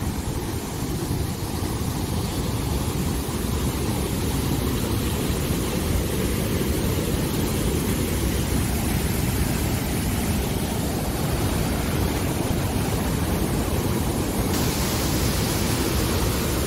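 Muddy floodwater rushing in a heavy torrent over rocks and debris, a dense, constant noise with no let-up.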